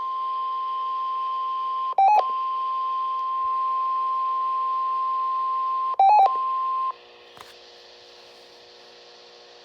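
NOAA Weather Radio warning alarm tone: a steady tone of about 1050 Hz, broken twice by brief louder chirps about four seconds apart. It cuts off about seven seconds in, leaving faint radio hiss.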